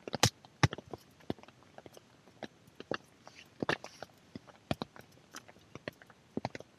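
Birch firewood being split into kindling and handled: a sharp strike right at the start, then irregular wooden knocks and clatters as split pieces are picked up and set down.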